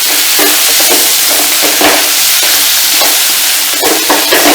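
Onion and spice masala sizzling in a hot pan while it is stirred, with several irregular scraping strokes of the stirring utensil against the pan over the steady sizzle.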